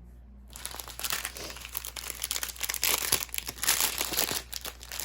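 Thin plastic crinkling and rustling as small plastic bags of diamond-painting drills are handled, starting about a second in.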